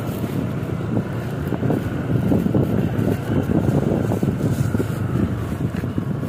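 Motorcycle riding over a rough dirt track: the engine's low running sound mixed with wind noise on the microphone and irregular knocks and rattles from the bumps.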